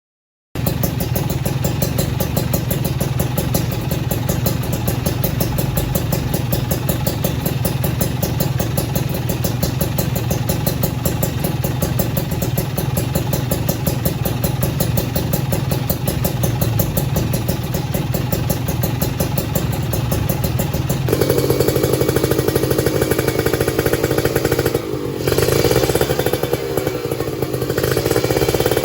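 Kawasaki Ninja RR's single-cylinder two-stroke engine running through an Aitech Cobra expansion-chamber exhaust, starting with a steady, rapid idle. About two-thirds of the way through it gets louder and higher as the revs are raised, with brief dips twice near the end.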